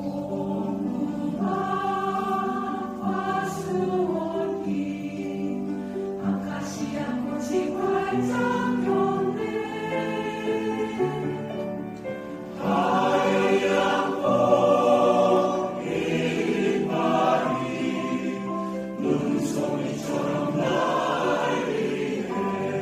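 Choir singing with piano accompaniment, the voices growing louder a little past halfway.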